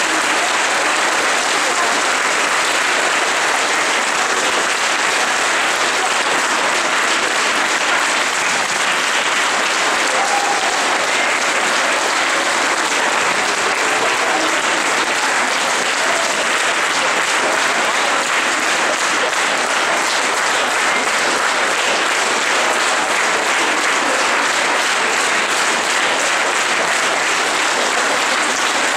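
Audience applauding steadily, a long unbroken round of clapping after the performers take their bow.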